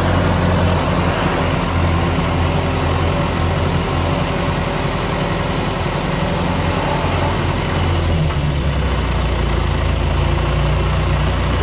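Farm tractor engine running steadily, heard from the driver's seat; about eight seconds in its low note drops lower.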